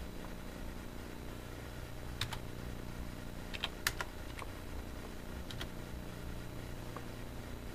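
Computer keyboard keys tapped as a number answer is typed in and entered: a handful of short clicks in small groups of two or three, over a steady low hum.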